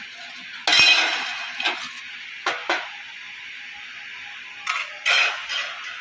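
Thin sheet-metal pieces clattering and clinking as they are handled and knocked against the steel bars beneath them. There is a loud clatter about a second in, then a few lighter knocks, some in quick pairs.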